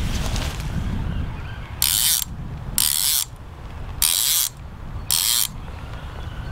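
Centrepin reel's ratchet check rasping four times, about a second apart, as line is pulled off the spool in short pulls.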